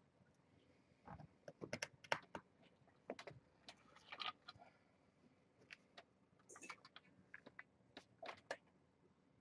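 Irregular light clicks and taps, coming in small clusters of a few at a time.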